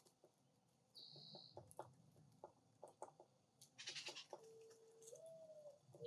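Faint bird calls: a short high whistle about a second in, then a run of short low clucking notes, and a low drawn-out coo that steps up in pitch near the end.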